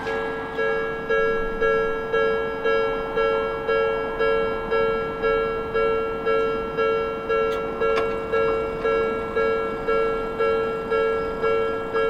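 Japanese level-crossing warning bell ringing in a steady, even rhythm, just under two strikes a second, each strike fading before the next.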